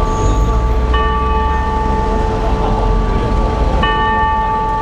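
A bell struck twice, about three seconds apart, each stroke ringing on, over steady city-street traffic noise.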